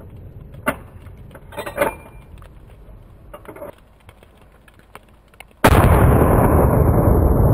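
A single hunting-rifle shot about three-quarters of the way in, followed by a long rolling echo whose high end fades first. Before it, faint scattered clicks and rustles.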